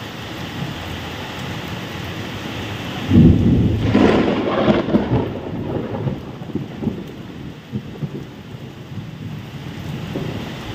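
Heavy rain falling steadily, with a loud clap of thunder breaking in about three seconds in and rumbling away over the next few seconds.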